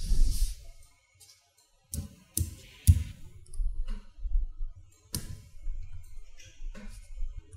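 Small neodymium magnet balls clicking sharply as they snap onto a column of balls under the fingers, a handful of separate clicks with a short quiet gap before them.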